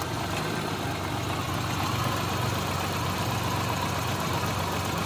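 Suzuki Mehran's three-cylinder petrol engine idling steadily under the open bonnet. It is running with the misfire and hunting that the mechanic puts down to weak fuel injectors.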